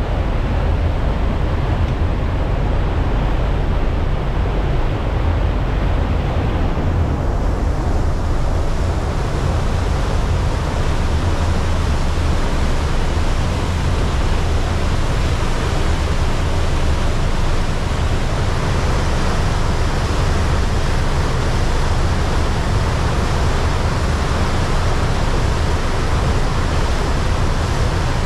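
Steady noise of a moving passenger ferry heard from its stern: a low rumble of engine and propeller under the rushing wash of the churning wake. The hiss grows brighter about a quarter of the way in.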